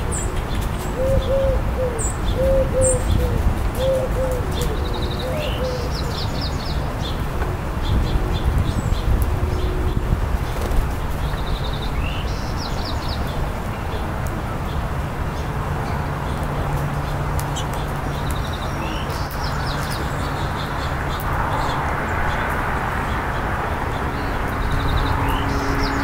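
Small songbirds chirping now and then, with a dove cooing a string of about four low notes in the first few seconds, over a steady low rumble.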